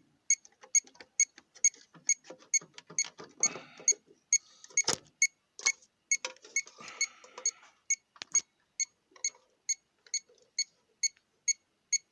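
Rapid electronic beeping, about four short beeps a second, going on steadily, with a few handling clicks and rustles and one sharp click about five seconds in.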